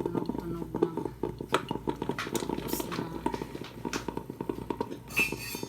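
Philips drip coffee maker gurgling and sputtering with a rapid, irregular crackle as the last of the water boils through at the end of the brew cycle, with a short hiss of steam about five seconds in.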